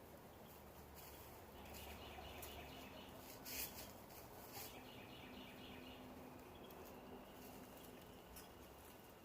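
Faint outdoor quiet with distant birds chirping in short rapid trills, a few light clicks, and one brief rustle about three and a half seconds in.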